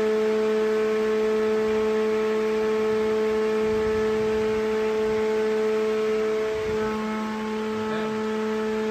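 Blower door fan running at full speed: a steady hum with a strong whining tone, dipping briefly about seven seconds in. Even flat out it only pulls the building down to about 7 pascals, the sign of a very leaky building.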